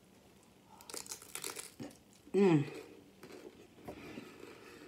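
Packaging crinkling in a quick run of short crackles for about a second, followed by a brief vocal sound that falls in pitch.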